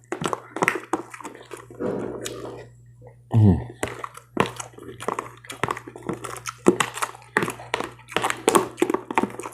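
Close-miked chewing of crunchy breakfast cereal, irregular crunches and clicks with a few spoon taps, over a steady low hum. A short, louder sound falling in pitch comes about three and a half seconds in.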